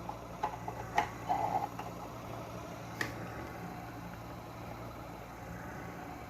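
Foot massager's motors running with a steady low hum just after being switched on from a 24 V battery on a freshly repaired control board, with a few sharp clicks in the first three seconds.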